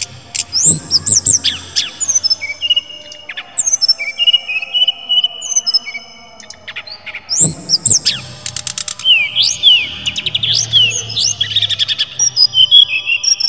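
Caged brown-chested jungle flycatcher (SRDC) singing: a varied string of clear whistled notes, quick rising sweeps and fast trills, with a quieter stretch about midway and busier runs of notes in the second half.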